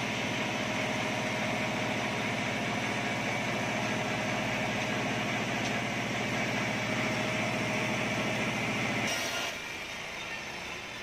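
Forklift engine running steadily with a fast low throb. About nine seconds in it cuts off abruptly, giving way to the quieter, even sound of a sawmill bandsaw cutting an acacia log.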